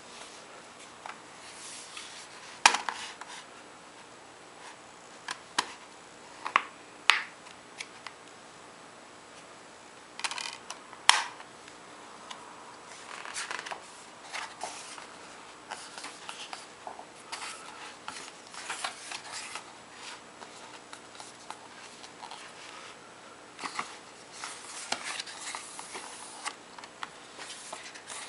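Hands handling and opening a Blu-ray digibook package: scattered sharp clicks and taps, the loudest a few seconds in and about 11 seconds in, with stretches of rustling packaging in the second half.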